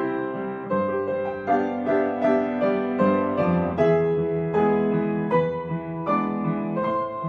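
Gentle piano music: a slow melody of single struck notes over sustained bass notes, a new note every half second or so.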